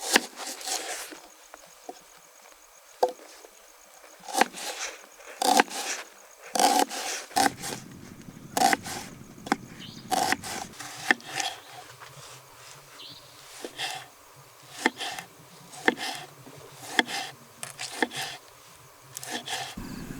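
Irregular knocks, clinks and scrapes of pots and firewood being handled at a campfire, some strokes ringing briefly, with a faint steady hum of insects behind them.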